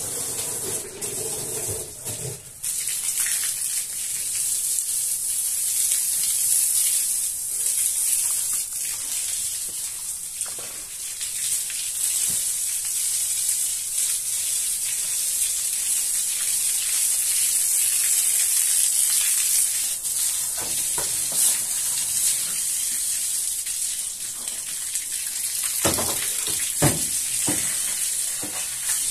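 A steady high hiss, with a few short knocks near the end.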